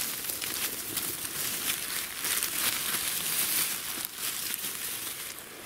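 Dry fallen leaves and twigs rustling and crackling, with many small snaps.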